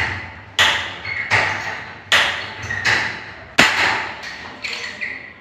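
A hand tool working the galvanized steel studs of a partition frame: a run of sharp metallic clacks, roughly one every three-quarters of a second, each ringing briefly. The sharpest clack comes about three and a half seconds in.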